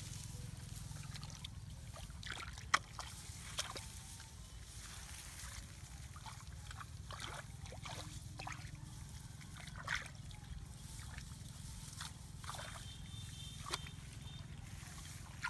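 Scattered rustles, snaps and small splashes as hands push through grass stems and grope in shallow muddy water. The sharpest snap comes nearly three seconds in, over a low steady rumble.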